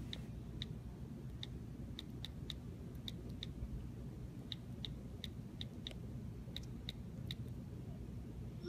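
iPhone on-screen keyboard clicks as a text message is typed: faint, irregular single ticks, about two a second with short pauses between words. Right at the end comes a short rising swoosh as the message is sent.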